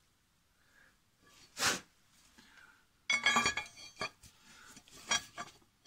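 Steel pry bar clinking and scraping against the crankshaft and connecting rods of a 235 Chevy straight-six, prying at a piston seized in its bore. One sharp clank comes about a second and a half in, then a run of ringing metal clinks and rattles from about three seconds on.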